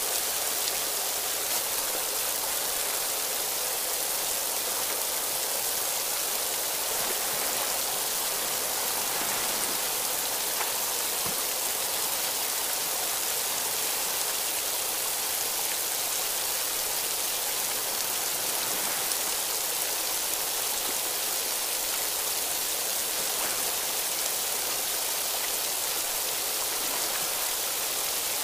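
A thin waterfall dropping through a narrow rock cleft into a pool: a steady, even hiss of falling and splashing water.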